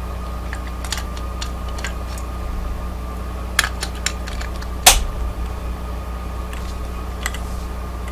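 Small sharp metallic clicks and taps of Kwikset lock parts being fitted back together during reassembly, the loudest click just before the middle, over a steady background hum.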